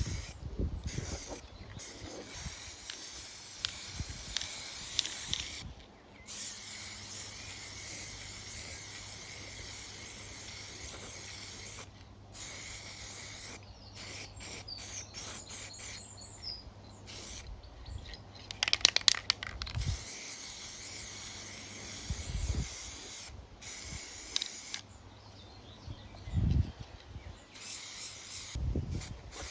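Aerosol can of spray primer hissing in long passes of several seconds each, with short breaks between them. A short, loud rattle comes about two-thirds of the way through.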